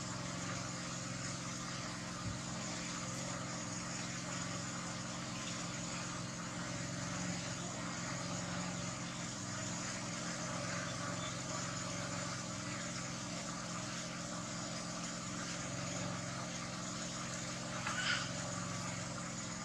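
Steady background hum and hiss that does not change, like distant traffic, with one brief high chirp near the end.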